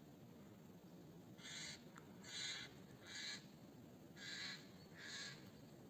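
A bird calling five times, short faint calls about a second apart.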